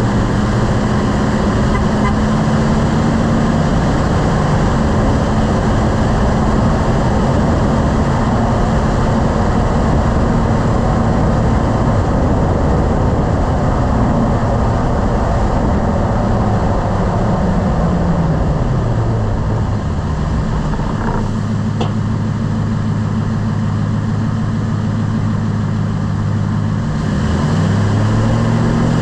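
Truck driving with engine and road noise; the engine note falls as the truck slows and then holds low. Just after it settles there is one short sharp knock, and near the end the engine note rises again as it pulls away.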